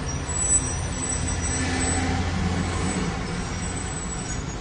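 Steady low rumble of road traffic and car engine heard from inside a car moving in heavy city traffic, with one brief knock about half a second in.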